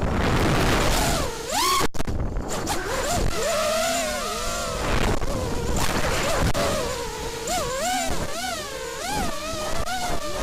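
FPV racing quadcopter's Cobra 2204 2300 kV brushless motors spinning 5-inch props, whining with a pitch that swoops up and down again and again as the throttle is worked through flips and rolls. A rush of air lies under the whine for the first couple of seconds, and the sound cuts out for an instant about two seconds in.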